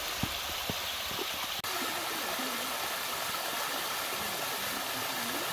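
Mountain stream rushing over rocks, a steady hiss of flowing water.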